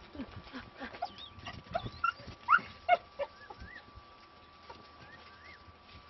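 Dog giving a string of short, high whines and yelps, quick rising cries packed into the first three seconds, the loudest two about halfway through, then a few fainter chirps.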